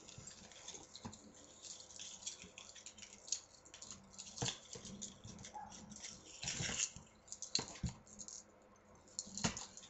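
Handling noise of jewelry being picked up and sorted: scattered rustles and light clicks, a few louder ones near the middle and end.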